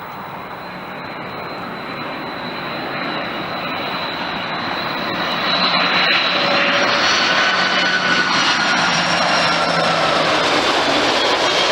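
Jet airliner passing close by: engine noise grows louder until about halfway through and then stays loud, with a steady high tone running through it.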